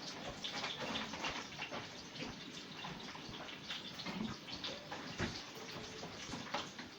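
Kitchen tap running water into a sink while things are rinsed, with scattered light knocks and clinks throughout.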